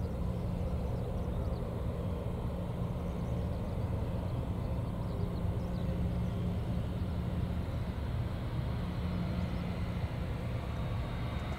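Jet engines of a Boeing 737-800 airliner running at low taxi power as it turns on the runway: a steady low hum, with a faint high whine coming in near the end.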